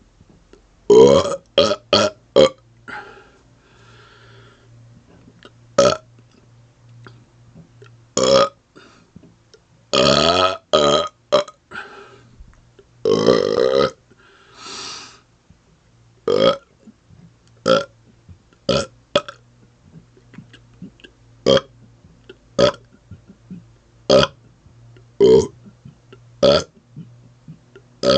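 A man belching over and over on purpose: quick short burps in clusters, a few longer drawn-out ones near the start and in the middle, then single short burps about one every second or so.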